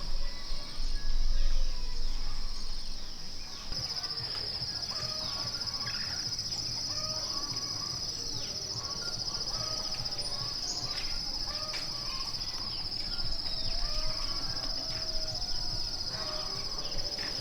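Insects droning steadily at a high pitch, with many short bird chirps over them; a low rumble fades out in the first few seconds.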